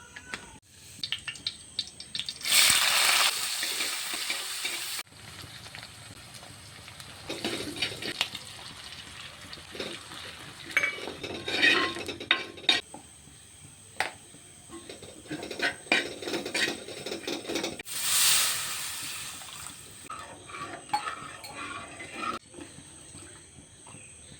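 Cooking in a pan: a spoon stirring and clinking against the pot many times, with two spells of loud sizzling, one near the start that cuts off suddenly and one about three-quarters of the way through.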